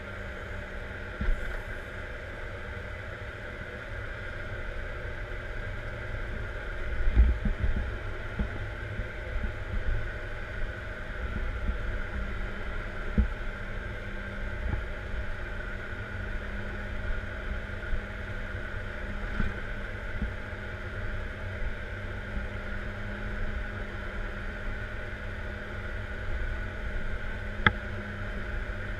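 Caterpillar 140M2 motor grader's diesel engine running steadily, heard from inside the cab while the machine grades dirt. Occasional knocks and bumps come through the rumble, the loudest about seven seconds in, with a couple of sharp clicks near the start and the end.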